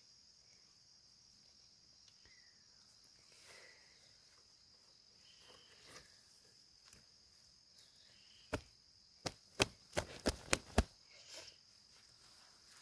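Insects buzzing steadily at a high pitch, with a quick run of about seven sharp chopping knocks on wood about two-thirds of the way through.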